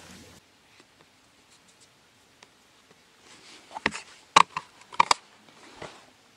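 Fishing tackle being handled while a hook leader is swapped for a lighter hook: a run of sharp clicks and knocks, the loudest about four to five seconds in.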